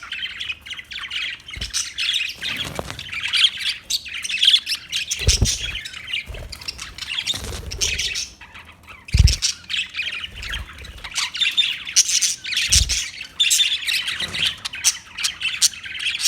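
Budgerigars chattering and squawking without pause, broken by a few short low thumps.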